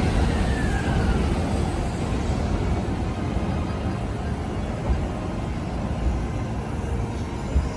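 JR E531 series electric train pulling out and moving away, its running and wheel noise slowly fading. A tone slides down in pitch in the first second, and a couple of light knocks come later.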